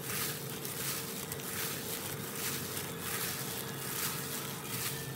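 Plastic-gloved hand squeezing and tossing wet glass noodles in a bowl: soft squelching and glove crinkling in repeated strokes about twice a second, over a steady low hum.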